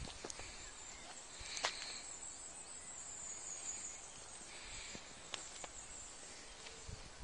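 Faint woodland ambience: a steady outdoor hiss with a faint high twittering, broken by a few light clicks and rustles near the ground.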